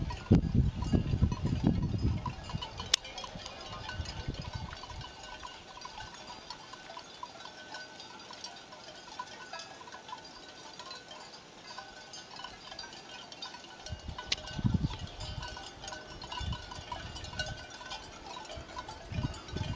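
Many cowbells on a herd of grazing cattle ringing and clanking irregularly, with overlapping tones. Low rumbles come in at the start, again about two-thirds of the way through, and near the end.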